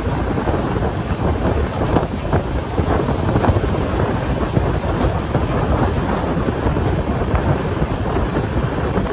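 Express train running, a steady loud rumble from the moving coach with wind buffeting the microphone.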